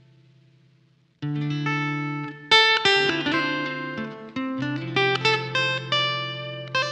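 Acoustic guitar fingerpicked solo: a few ringing notes die away, then about a second in a low bass note comes in loud and held, with plucked melody notes ringing over it.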